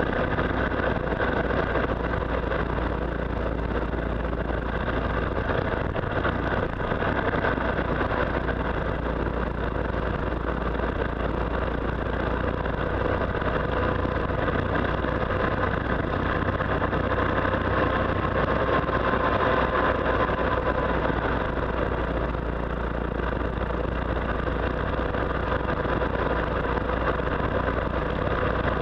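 Motorcycle engine running at a steady cruising speed, with heavy wind rush on the microphone. The engine note wavers slightly about two-thirds of the way through.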